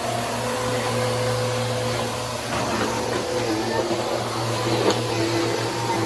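Corded upright vacuum cleaner running with a steady motor hum and airflow whoosh as it is pushed over a hard floor. There is a brief knock about five seconds in.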